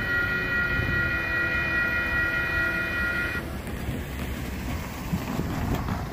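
Diesel locomotive air horn, one steady blast of about three and a half seconds that cuts off sharply, over the low rumble of the train moving away.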